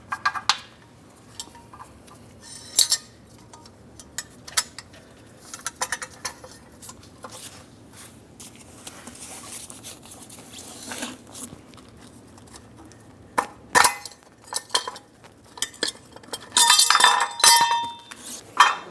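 Metal clinks and rattles as a spare-tire hoist cable and its retainer are worked down through the centre hole of a steel spare wheel. The clinks are scattered at first and come thicker near the end, with a short metallic ring.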